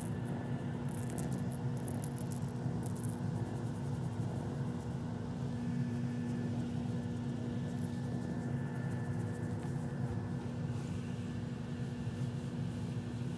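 Domestic cat purring steadily and close up while its head and chin are stroked, over a steady low hum.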